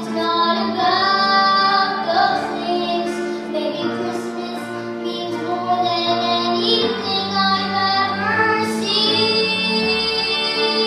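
A child singing a song over instrumental accompaniment, holding a long note near the end.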